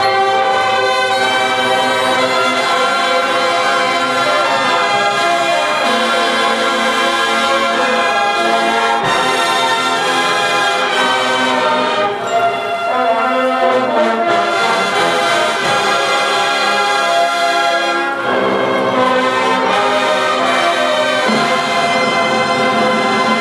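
Marching band playing: the brass section holds full, sustained chords over the marching percussion, with two short low drum hits about nine and sixteen seconds in.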